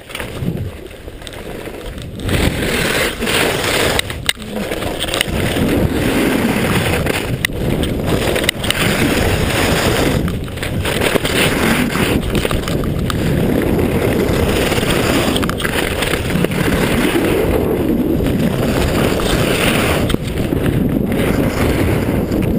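Skis scraping and carving over packed, tracked snow on a fast downhill run, with rushing air on the microphone. The sound grows louder over the first couple of seconds as speed builds, then stays steady.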